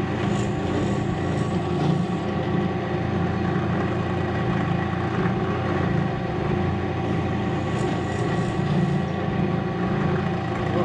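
WEN 4212T benchtop drill press with a 5-amp induction motor running steadily, with a few constant tones over an even hum, as the bit is fed down into a wooden block to drill holes.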